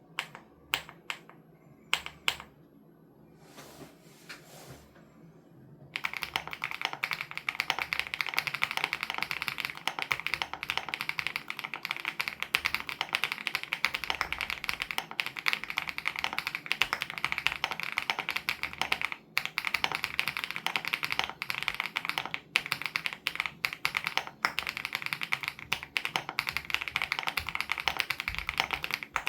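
Typing on a WOB Crush 80 Reboot custom mechanical keyboard with Hyacinth switches: a few separate keystrokes at first, then fast, continuous typing from about six seconds in, with a couple of brief pauses.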